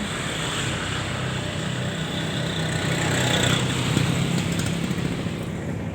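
Citilink airliner's engines during takeoff and climb-out: a steady broad rush with a low hum under it, swelling slightly around the middle and easing near the end.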